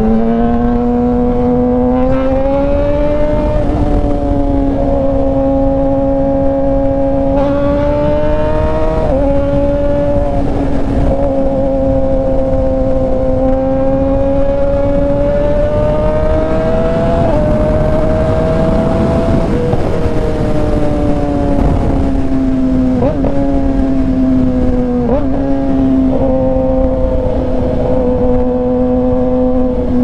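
A 2019 Yamaha R6's 599 cc inline-four engine running through an Austin Racing aftermarket exhaust while riding at a steady speed. The engine note climbs and dips slightly several times as the throttle is eased on and off, over steady wind rush.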